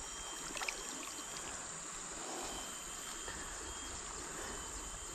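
Fast-flowing river water running steadily, with a couple of faint clicks a little over half a second in.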